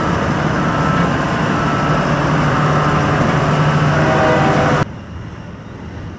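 Loud, steady machine noise with a constant low hum, cutting off suddenly about five seconds in and leaving a quieter steady background drone.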